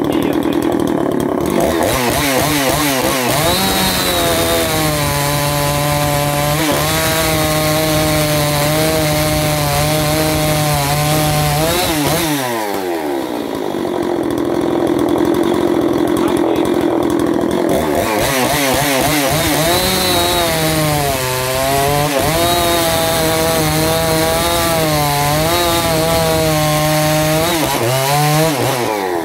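Husqvarna 357XP 56 cc two-stroke chainsaw cutting through a log at full throttle. The engine pitch drops and wavers under load while the chain is in the wood, and it revs freely back up about twelve seconds in as the cut breaks through. It then loads down again for a second cut and frees up once more near the end.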